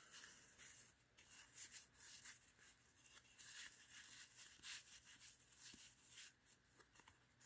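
Faint sliding and rubbing of 1990 Fleer basketball cards being flipped through by hand, a soft scrape every half second or so.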